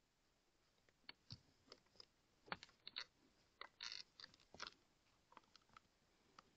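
Faint, scattered clicks and crackles, a dozen or so, with a brief scratchy rustle about four seconds in: handling noise as the scoped air rifle is moved.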